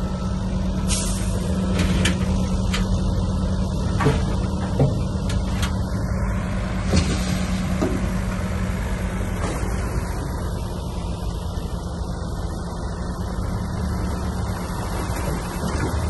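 Heavy diesel construction machinery running steadily, with several sharp knocks and clanks in the first half and brief hisses about a second in and again near the middle.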